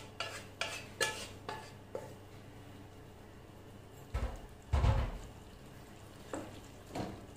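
Spoon scraping and clinking against metal cookware as mutton curry is emptied from a pressure cooker into a large metal pot, about two clinks a second at first. A pair of dull, heavy thumps comes about four to five seconds in, followed by a few lighter knocks.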